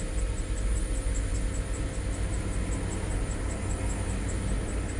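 2005 Land Rover LR3's 4.4 L V8 idling rough with a misfire on cylinder 7, described as a dead miss.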